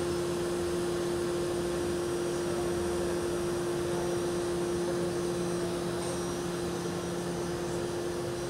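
Kuraki KBT-11WA CNC horizontal boring mill running: a steady machine hum with one constant tone over an even whir, unchanging throughout.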